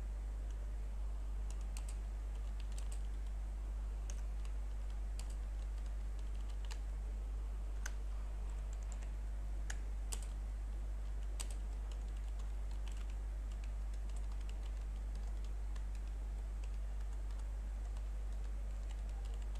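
Typing on a computer keyboard: irregular, scattered keystrokes over a steady low hum.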